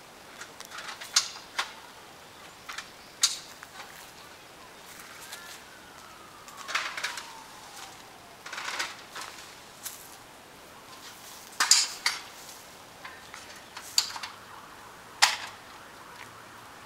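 Scattered sharp clicks and clinks, about nine of them at uneven spacing, with a faint falling whine near the middle.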